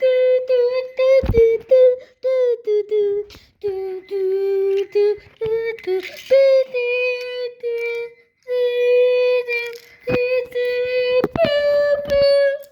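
A child singing a wordless tune, a string of held notes that step up and down in pitch, with short breaks between phrases.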